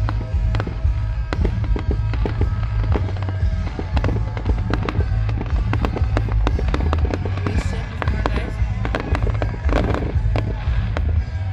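Fireworks display with many bangs and crackles in quick succession over a deep rumble, with music playing alongside.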